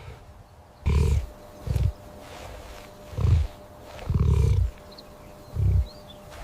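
Lion roaring in a run of deep grunts, about five of them, alternating longer and shorter.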